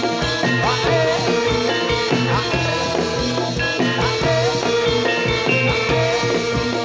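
Live jathilan accompaniment music: a Javanese gamelan-style ensemble with drums keeping a steady beat, played loud through a sound system.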